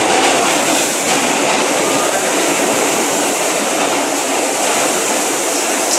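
New York City subway F train running at speed through a tunnel, heard from inside the car: a steady, loud noise of wheels on rail and the car in motion.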